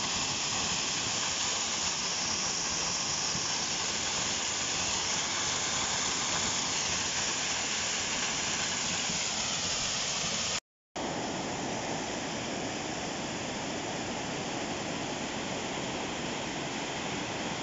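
Small waterfall splashing steadily down a rock face. About eleven seconds in, after a brief cut, it gives way to a swollen river rushing over boulders.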